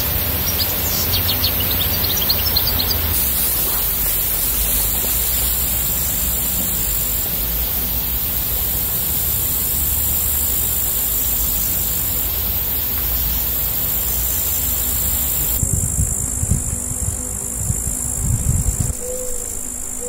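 Steady high-pitched shrilling of insects in summer grass and woodland, over a low rumble. The sound changes abruptly about three quarters of the way through, the highest part dropping away, with a few low knocks after.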